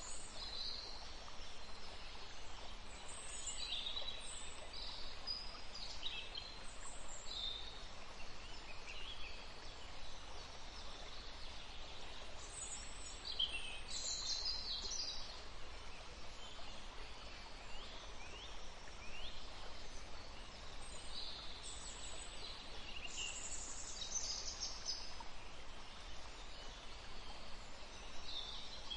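Outdoor nature ambience: birds chirping irregularly, in short high calls and a few falling notes, over a steady low hiss.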